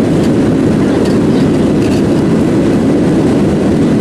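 Boeing 737 airliner noise: a steady, heavy rumble of engines and airflow that holds unchanged throughout.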